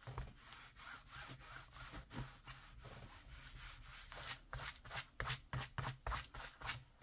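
Hands rubbing and smoothing down a piece freshly stuck on with double-sided tape: a run of short, faint rubbing strokes that come faster in the second half.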